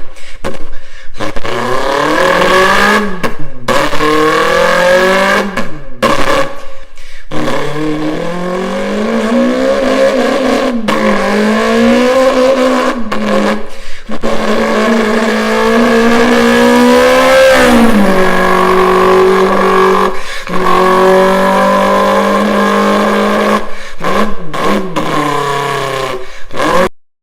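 A person imitating a Nissan Skyline R34 GT-R with his mouth: engine revs that rise over and over as if shifting up through the gears, with held notes and turbo flutter, broken by short pauses. It stops suddenly just before the end.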